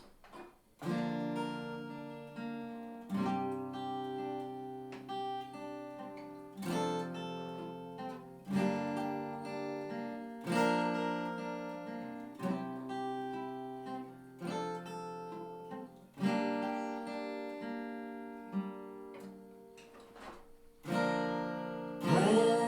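Unplugged acoustic guitar playing a slow song intro: a chord strummed about every two seconds and left to ring out and fade before the next.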